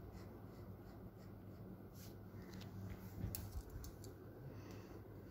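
Spatula scraping and stirring prawns in hot mustard oil in a metal kadai: faint, uneven scrapes over a low steady hum.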